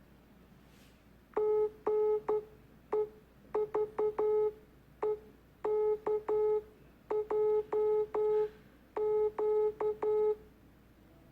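Morse code sent as a single steady electronic beep tone in short dots and long dashes, about twenty in all, grouped into letters with pauses between them. The pattern spells 사랑해 ("I love you") in Korean Morse code: --. . ...- . -.- .--- --.-.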